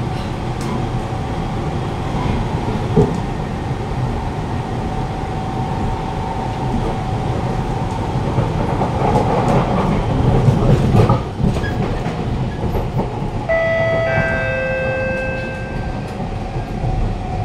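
Siemens C651 metro train car running along the track, heard from inside the carriage: a steady rumble with rattling that swells louder midway. Several steady high tones sound together for about two seconds near the end. The uploader puts the car's shaking and weird noises down to worn suspension.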